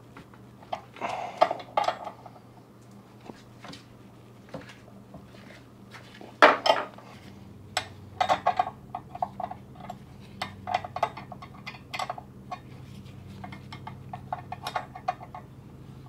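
Metal clinks and short runs of quick clicks from a hand wrench tightening the set bolts on a garage door torsion spring's winding cone, locking the freshly wound spring in place; one louder clank about six and a half seconds in.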